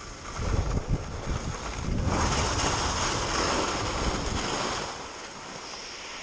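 Wind buffeting and rushing over a body-worn action camera's microphone, with the hiss of skis running on groomed snow. Low gusty thumps come in the first two seconds, the rush is loudest through the middle, and it eases to a quieter hiss about five seconds in.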